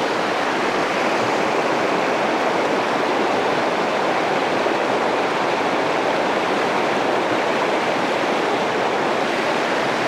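Fast, shallow river water rushing over rocks in a whitewater riffle: a steady, unbroken rush.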